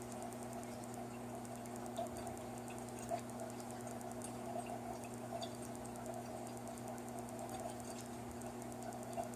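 Electrolux Eco Turbo TRW12 washing machine running early in its wash cycle: a steady hum with scattered light clicks and ticks.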